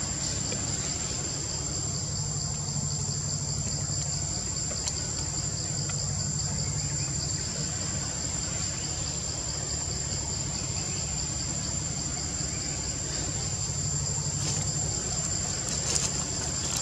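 Steady high-pitched insect chorus: one continuous shrill trill with a faster pulsing buzz just below it, over a low steady hum.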